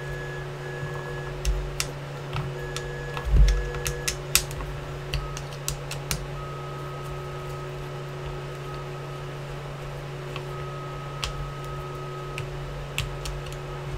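Small clicks and ticks of a 3 mm Allen key working the metric bolts of a paintball marker's pistol grip, with a low thump about three and a half seconds in, over a steady low hum.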